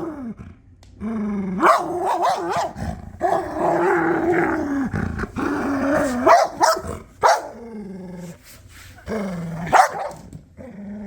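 Belgian Malinois growling in several long, wavering bouts while guarding its ball, broken by a few short, sharp outbursts, a resource-guarding warning.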